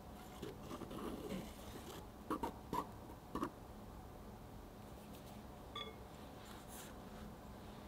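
A spatula swirling through thick cake batter in a round metal cake pan: soft, faint strokes, with a few sharp taps between about two and three and a half seconds in. A brief faint tone sounds about halfway through.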